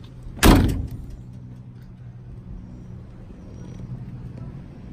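Driver's door of a 1981 VW Rabbit pickup slammed shut once about half a second in, followed by a steady low hum.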